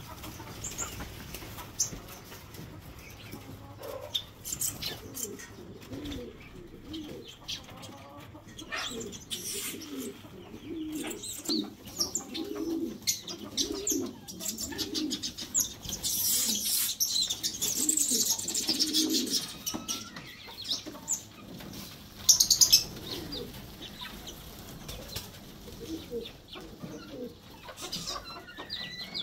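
Caged pigeons cooing in a low, wavering run through the middle stretch, with short bursts of wing flapping and some small-bird chirps.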